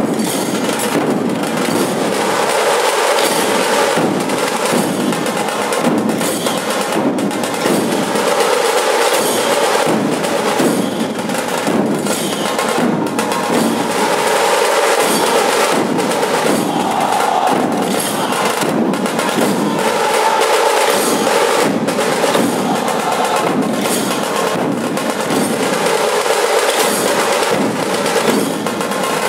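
A dhol-tasha pathak playing: massed dhol barrel drums and tasha kettle drums struck together in a dense, steady, driving rhythm.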